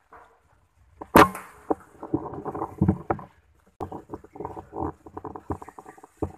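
Scoped air rifle fired once, a sharp crack about a second in, followed by an irregular run of clicks and rustling.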